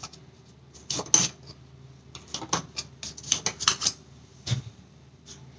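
A knife tapping and scraping against the sides of a metal loaf tin in a run of short, sharp clicks, as it is worked around a baked loaf to loosen it from the tin. A duller knock comes about four and a half seconds in.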